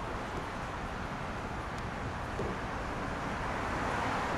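Steady wash of city traffic on rain-wet roads, tyres hissing with a low rumble of engines underneath; one passing vehicle swells louder near the end.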